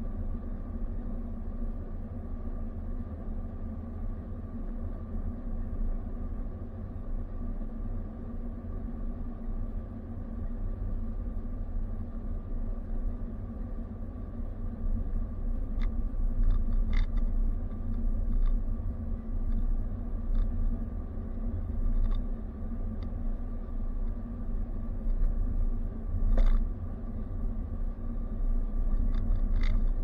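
Car driving at road speed, heard from inside the cabin: a steady low rumble of engine and tyres on the road with a faint steady hum. A few small knocks come in the second half, the loudest about 26 seconds in.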